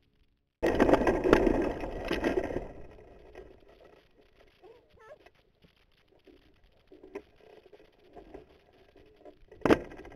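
Wind rushing over the microphone of a camera mounted on a hang glider. It starts suddenly about half a second in, is loud and rough for about two seconds, then dies down to low rustling. A single sharp knock comes near the end.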